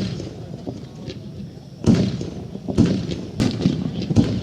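Aerial firework shells bursting in a series of sharp booms, the first about two seconds in and several more in quick succession after it, over a low steady rumble.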